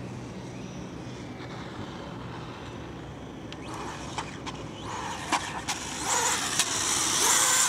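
SkyRC Super Rider SR4 RC motorcycle's brushless electric motor whining, its pitch rising and falling as it revs. It starts faint and gets loud over the last couple of seconds. From about four seconds in there are several sharp ticks or knocks.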